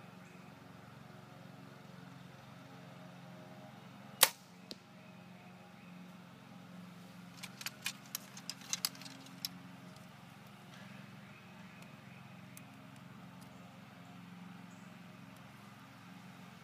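PSE Evo compound bow shot: one sharp, loud snap of the string about four seconds in, then a fainter knock about half a second later as the arrow strikes the target. Around eight to nine seconds, a quick run of light clicks as arrows are handled in the arrow stand, over a steady low hum.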